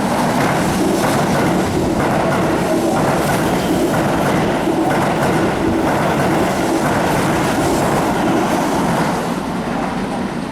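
A Keihan electric train running through the station without stopping. A steady loud rush of wheels on rail, with repeated clicks as the wheels cross the rail joints, easing off about nine seconds in as the train clears the platform.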